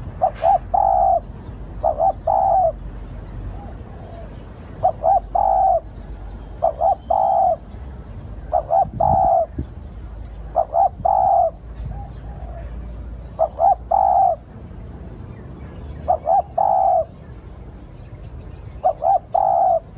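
Spotted dove cooing. About eight times, it gives a phrase of two or three short coos ending in a longer coo, every two to three seconds. Faint chirps from small birds sound above it.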